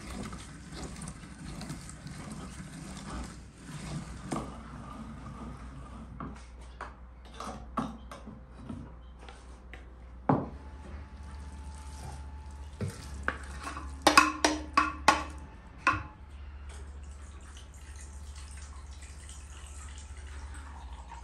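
Kitchen work sounds: a hand-cranked meat grinder turns and grinds for the first several seconds, followed by scattered knocks and a loud run of clattering dishes and lids lasting about two seconds. Near the end, liquid trickles into an enamel bowl.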